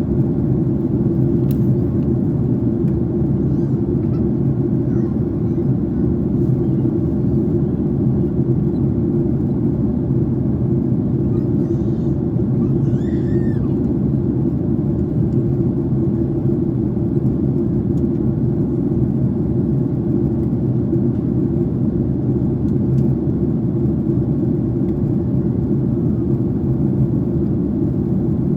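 Steady cabin rumble inside a Boeing 767-300ER in flight: engine and airflow noise, deep and unchanging.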